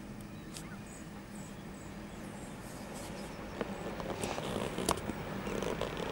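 Faint background ambience: a steady low hum with a few sharp clicks, mostly in the second half, and a few faint high chirps.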